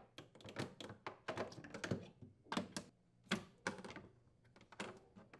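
Metal rack slide rails being unclipped and pulled from the wine cellar's inner side wall: a run of light, irregular clicks and taps.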